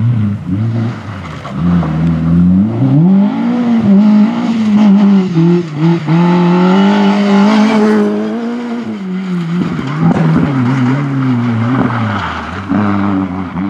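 Opel Corsa rally car's engine revving hard, its pitch climbing and dropping again and again as it shifts gear and lifts off and gets back on the throttle through the corners. The engine is held high for several seconds in the middle, then falls away near the end.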